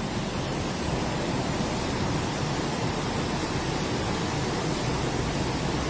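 Steady rushing noise with a deep rumble underneath, unbroken and even in level throughout.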